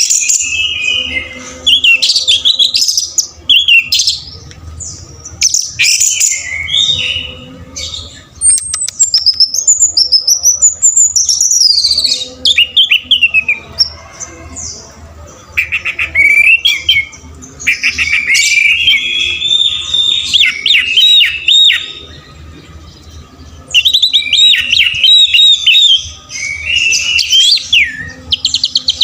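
Orange-headed thrush singing a long, varied song of rapid whistled, trilled and gliding phrases, in loud bursts broken by short pauses.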